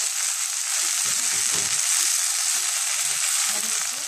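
Chopped fresh fenugreek (methi) leaves sizzling steadily in hot oil in a steel kadhai while they are stirred with a spoon. A few soft knocks and scrapes of the spoon come about a second in and again near the end.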